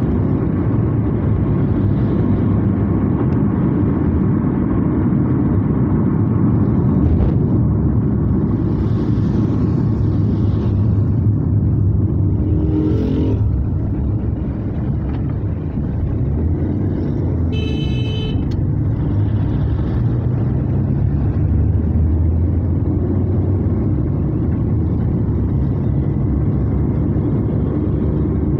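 Steady road noise inside a moving car on a wet road: engine and tyre rumble, with swells of tyre hiss now and then and a short high-pitched tone about eighteen seconds in.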